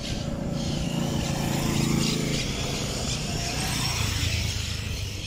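Motorcycle engines as bikes ride past at low speed: one engine note grows louder, peaks about two seconds in and fades. A deeper engine note from another bike follows near the end.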